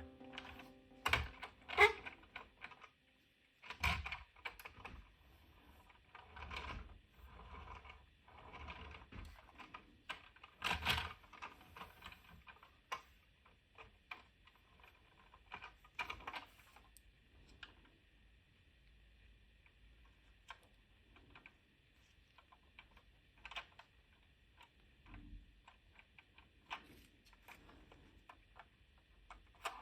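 Scattered light clicks and taps at irregular intervals, from hands handling a 1:24 scale model car. They are more frequent and louder in the first half.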